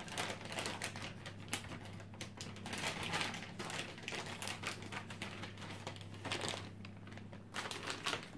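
Packaging and parts being handled: irregular clicks, taps and crinkling, over a steady low hum.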